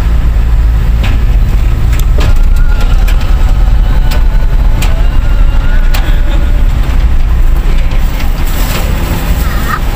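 A car driving up a ferry's ribbed steel loading ramp: a loud, steady low rumble with scattered sharp knocks and clanks.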